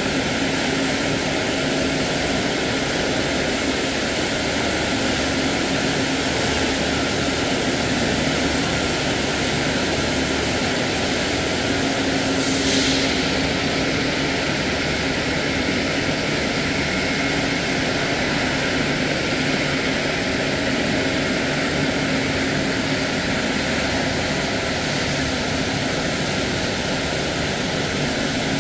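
Steady drone of food-processing plant machinery running, with a constant low hum and a brief hiss about halfway through.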